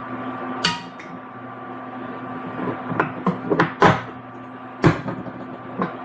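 Scattered kitchen knocks and clicks, about seven in all, from seasoning containers and a measuring spoon being handled as salt is measured out, over a steady low hum.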